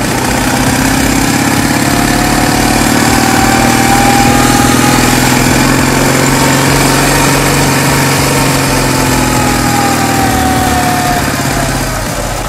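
Motorcycle engine running steadily under way, its pitch rising gently over the first few seconds and easing off again near the end, with a rush of wind noise.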